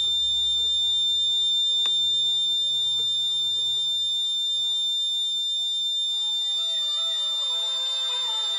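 Alarm buzzer on an accident-detection kit sounding one continuous high-pitched tone, the alarm state after a vehicle impact has been detected. From about six seconds in, a quieter tune of shifting notes plays alongside it.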